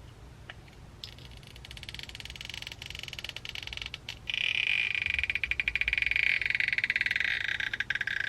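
Adhesive strips creaking as the old battery of an iPhone SE is pried and pulled free. The rapid creaking rasp starts about a second in and grows louder about four seconds in.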